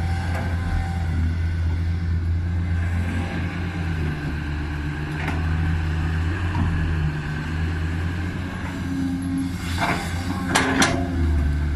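Caterpillar 320C excavator's six-cylinder diesel engine running under working load while digging soil, its hum easing and strengthening a little as the hydraulics are worked. A few brief sharp noises come near the end.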